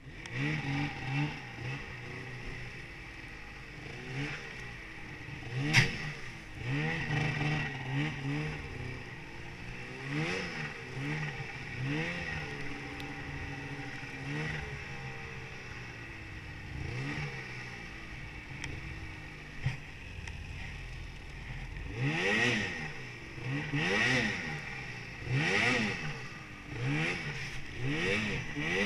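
2017 Arctic Cat Mountain Cat snowmobile engine running under throttle in deep powder. Its pitch rises and falls again and again, in short quick rev-ups over the last several seconds, with a sharp knock about six seconds in.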